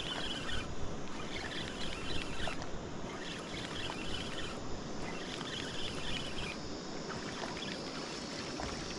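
Steady rush of river water, with short bursts of high chirping recurring every second or two.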